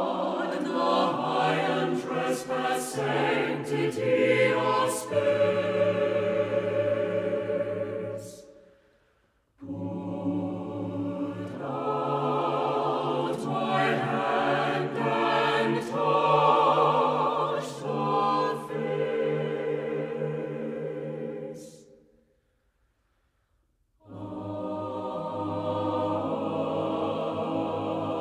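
Choral music: a choir singing long, held chords. It breaks off twice, briefly about a third of the way through and for about two seconds two thirds of the way through, then resumes.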